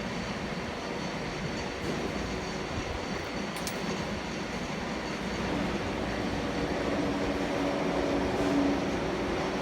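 Steady mechanical running noise with a low hum, a little louder in the second half, and one faint high tick about three and a half seconds in.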